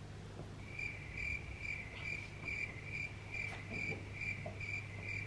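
Cricket chirping sound effect: an even, high chirp about twice a second, starting about a second in, over a low steady hum. It is the stock 'crickets' cue for an awkward silence.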